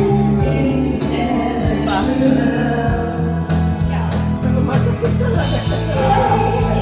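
Music with singing, a steady bass line under a sung melody.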